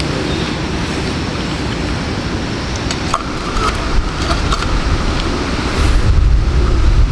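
Steady rushing noise with a few light metallic clicks about three and four seconds in as a pot is set onto a canister gas stove. A low rumble swells near the end.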